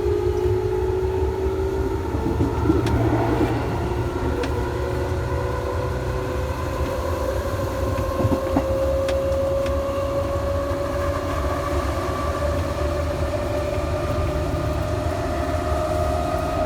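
Electric train traction motors whining, the tone rising slowly and steadily as the train gathers speed, over a constant low rumble of the running gear.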